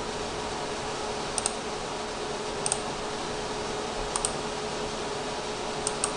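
A few sharp computer mouse clicks, some in quick pairs, as setup screens are clicked through. They sit over a steady background hiss and hum.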